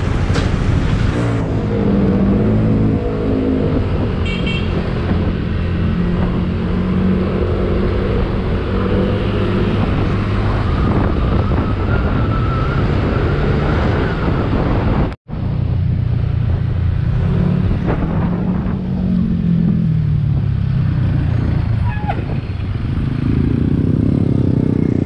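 Yamaha NMAX scooter's engine and CVT running under way, the engine note rising and falling with the throttle, over wind and road noise. The sound cuts out completely for a split second about 15 s in.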